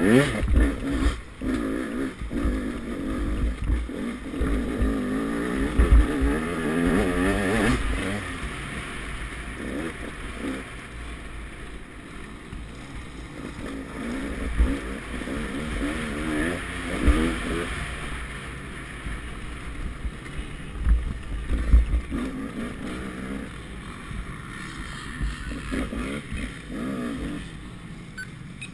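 KTM 200 XC-W single-cylinder two-stroke dirt bike engine revving up and down under load. It is loudest for the first several seconds, then runs quieter with the throttle eased. Low thumps come through the bike-mounted camera throughout.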